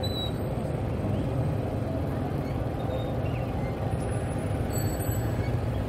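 Busy city street traffic: the engines of minivans and cars running in a steady hum.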